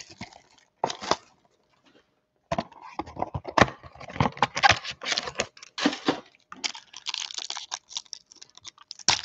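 Plastic wrapping being torn and crinkled off a football trading-card box. There is a short crinkle about a second in, then from about two and a half seconds a dense, irregular run of crackles and snaps.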